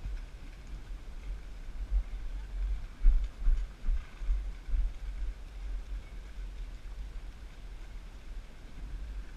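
Wind buffeting the microphone: a low rumble that swells in gusts for a few seconds midway, then settles.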